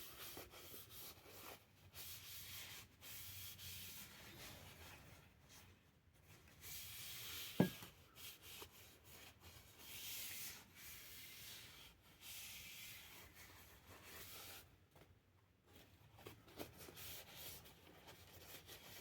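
Faint, repeated rubbing strokes of a rag working boiled linseed oil into a wooden axe handle, with a single short knock about seven and a half seconds in.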